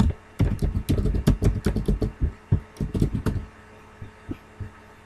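Typing on a computer keyboard: a quick run of dull keystrokes that stops about three and a half seconds in, followed by a couple of faint clicks.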